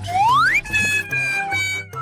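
Music with a steady low bass line. In the first half second a high whistle-like note slides upward, then holds as a high steady tone until near the end.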